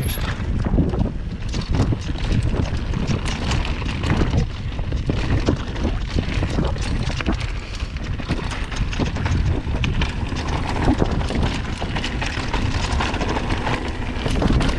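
Mountain bike descending a rough trail at speed: wind buffeting the microphone, with frequent sharp clatters from the bike and tyres over stones.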